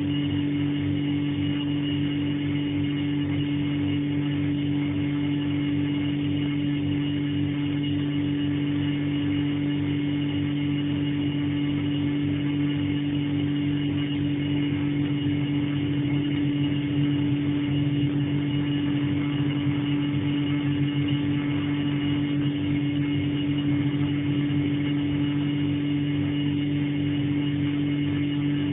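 Refrigerator running with a steady, unchanging hum made of several held tones, a low one the strongest; a loud refrigerator.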